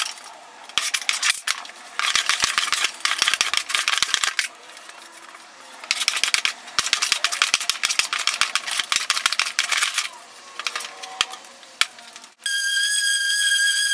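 Card scraper drawn in repeated strokes across a hardwood board: a rasping scrape with small clicks, in runs of one to four seconds with short pauses between. About twelve seconds in, this gives way to a random orbital sander running with a steady high whine.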